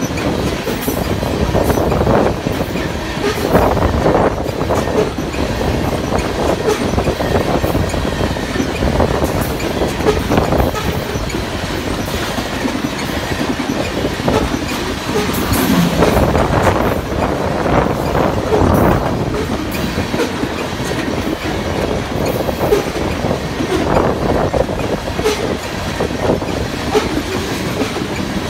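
Freight train of coal gondola cars rolling past close by: steady rumble of steel wheels on the rails, with repeated clacks and louder surges as the wheel sets pass.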